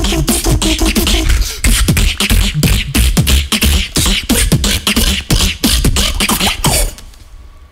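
Two beatboxers performing a drum and bass freestyle together into handheld microphones: fast mouth-made kicks, snares and hi-hats over a deep bass, with a hummed tone in the first second or so. It stops abruptly about seven seconds in.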